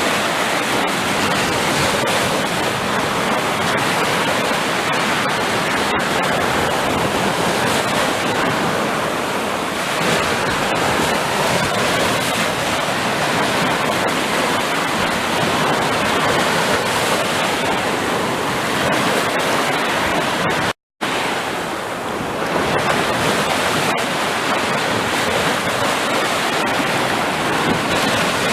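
Ocean surf: a steady rushing wash of waves, with a split-second cut to complete silence about two-thirds of the way through.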